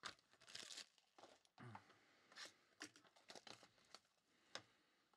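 Clear plastic shrink-wrap being torn and crinkled off a trading card box by hand: a faint run of irregular crackles and rustles.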